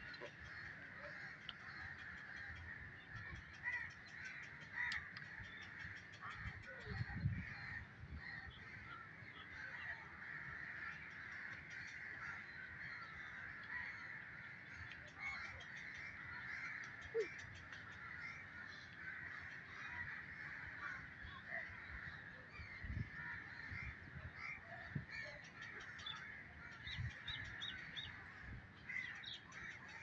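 Continuous chatter of many birds calling, a steady mix of short calls, with a few low thumps about a quarter and three quarters of the way through.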